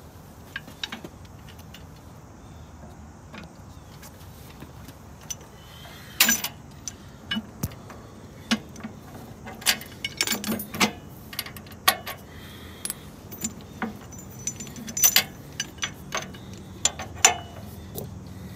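Steel sway chains and a linchpin on a Mahindra Max 26XLT's three-point hitch clinking and rattling as they are handled and slid onto their mounting bar. The sound is a scattered string of sharp metallic clicks, a few of them ringing briefly.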